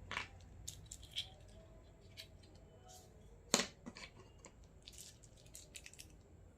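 Light clicks and taps of small plastic toy kitchen pieces being handled, irregular and faint, with one sharper tap about three and a half seconds in.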